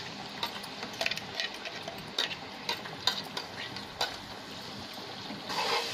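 A metal spoon scraping and tapping in irregular clicks against a nonstick pot as ginger-garlic paste is stirred into onions frying in oil, over a steady low sizzle. The sizzle gets louder near the end.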